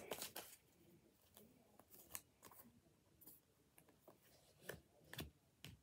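Faint, scattered clicks and soft snaps of tarot cards being handled, drawn from the deck and laid down, about half a dozen at uneven intervals.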